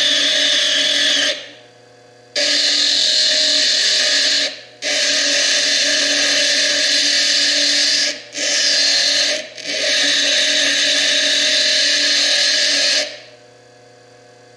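Foredom bench lathe's cutting tool grinding into fire agate, a loud gritty hiss that cuts out abruptly four times as the stone is lifted off and pressed back on. It stops about a second and a half before the end, leaving the lathe motor's steady hum.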